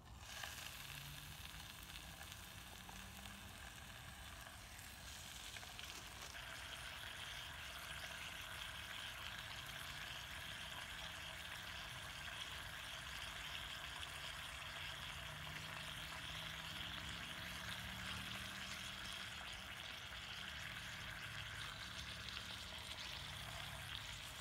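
Bacon rashers sizzling in a small frying pan over a gel-fuel stove, a steady hiss that grows stronger about six seconds in and then holds even.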